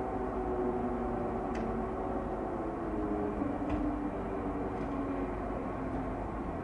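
Civil-defence air-raid siren wailing: a sustained tone with several overtones that wavers slightly in pitch, the alert for a possible air attack. A few faint short high ticks sound over it.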